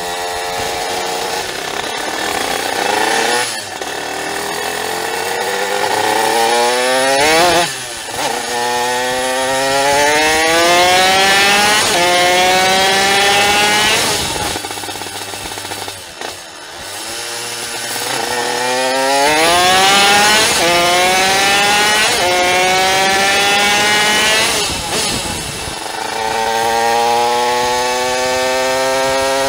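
Tuned Simson S51 moped's 85 cc reed-valve two-stroke engine (RH 85 cylinder with a Tassinari VForce3 reed block) accelerating hard under load. It rises in pitch again and again, with brief dips at each gear change, and backs off once about halfway through before pulling up through the gears again.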